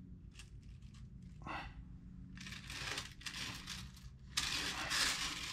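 Rustling, scraping handling noise in a few bursts as hands work on a clay sculpture and its armature, over a steady low hum. The handling noise starts about two seconds in and is loudest near the end.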